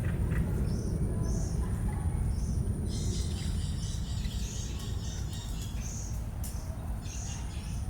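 Birds chirping: a short high call repeated about once a second, joined by denser high chattering about three seconds in, over a steady low rumble.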